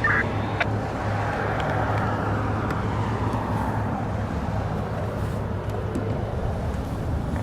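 Road traffic noise, a vehicle passing by, over a steady low hum, with a short beep right at the start.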